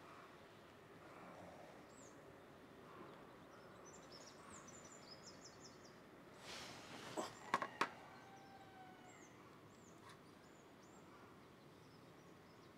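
Quiet background with faint birds chirping, and a quick cluster of sharp clicks about seven seconds in.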